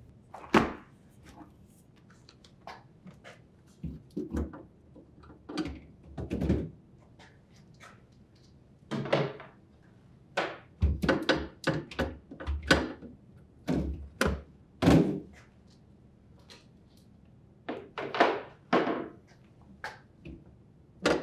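Refrigerator door pulled open, then glass shelf assemblies lifted, unhooked from their slots and slid out of the fridge: a long series of separate clunks, knocks and scrapes.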